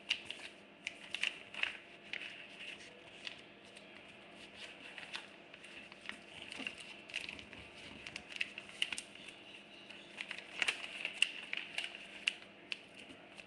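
A square sheet of paper being folded and creased by hand into a paper fortune teller: irregular crinkles, rustles and small sharp clicks of paper pressed against a table.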